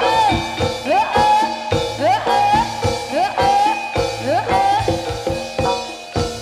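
Live jaranan music from a Javanese ensemble: regular drum strokes under steady gong-like tones, with a melody that slides upward again and again, about once a second. It grows quieter near the end.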